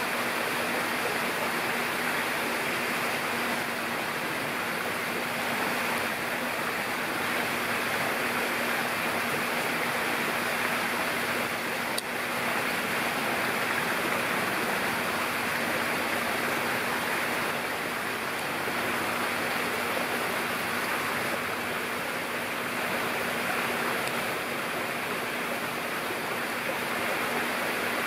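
Steady rush of running water with a faint low hum underneath. No bird calls stand out.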